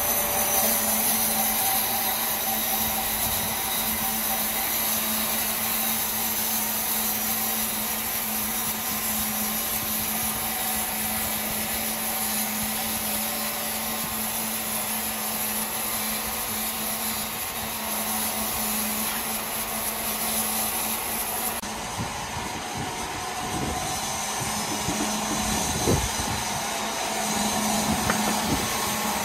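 Powered wood saw running: a steady motor hum under a constant noise of machinery. The sound changes about three-quarters of the way through, after which a few sharp knocks come.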